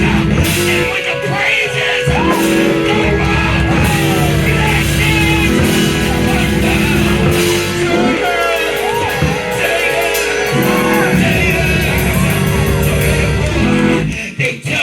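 Loud live band music with guitar and held chords, and voices singing over it; it drops away briefly near the end.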